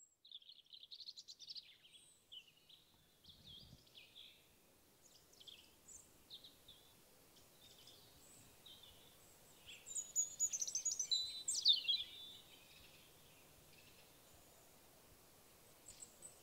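Wild birds calling at first light: a scatter of high chirps and whistles, thickest and loudest about ten to twelve seconds in, where one loud whistle falls steeply in pitch.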